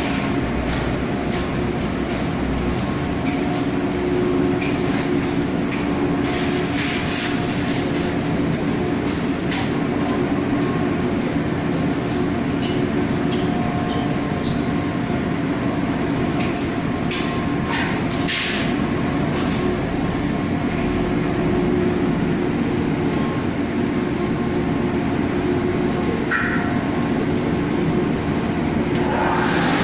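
Machinery running steadily with a constant hum and rumble, and a few scattered clicks and knocks.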